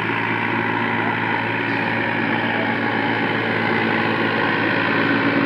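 New Holland four-wheel-drive tractor's diesel engine running steadily under load as it works through deep, flooded paddy mud, growing slightly louder toward the end.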